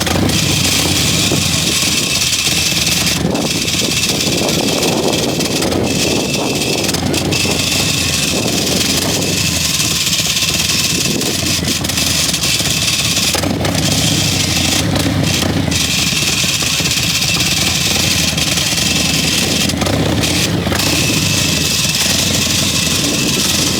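Harley-Davidson Street Glide's V-twin engine running steadily at low revs as the motorcycle crawls along in a slow race.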